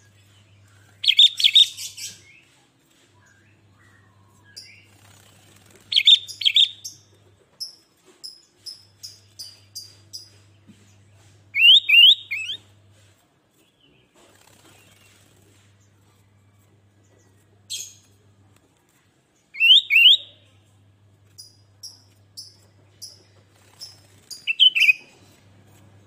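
Sooty-headed bulbul (kutilang) singing. It gives loud, quick phrases of two to four whistled notes about every five to six seconds, and between them runs of short, high chirps at about two a second.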